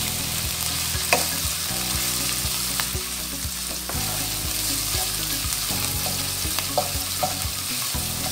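Ground beef and diced onion sizzling in butter in a wok, stirred with a wooden spatula that knocks against the pan now and then. The beef is being browned until it changes colour.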